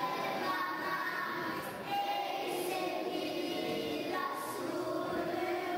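Voices singing together, a slow melody with long held notes.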